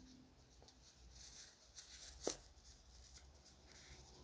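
Faint handling noise of a watch and its packaging: soft rustling of the cloth pillow and box, with one sharp click about two seconds in.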